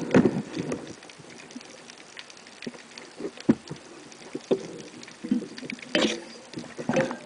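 Scattered irregular knocks and clicks over a muffled rustle, the loudest just after the start and about three and a half seconds in, with a cluster around six and seven seconds.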